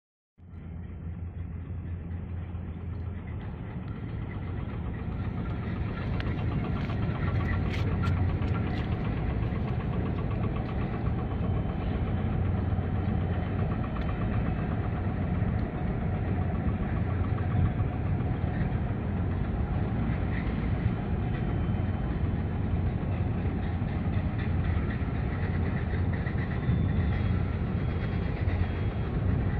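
Steady low engine rumble that fades in and grows louder over the first few seconds, then holds level.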